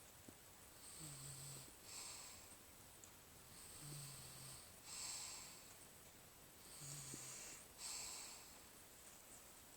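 Faint, slow snoring in deep sleep: three breaths about three seconds apart, each a short low snore followed about a second later by a hissing out-breath.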